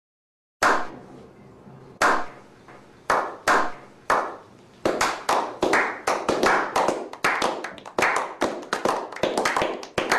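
A slow clap by a small group. Single hand claps start about half a second in, roughly a second apart, then quicken and pile up into brisk, overlapping applause.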